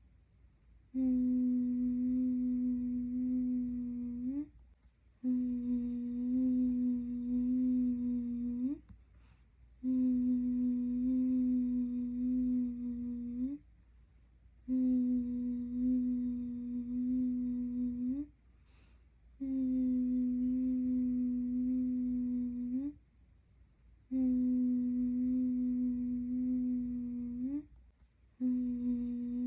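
A person humming one steady low note for baby sleep. Each hum is held about four seconds, slides up slightly at its end, and is followed by a short pause for breath, so the note repeats six or seven times.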